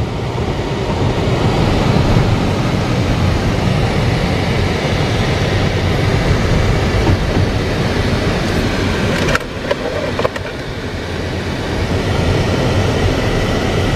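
Steady road rumble of tyres and wind inside a moving car's cabin at highway speed. It dips briefly about nine and a half seconds in.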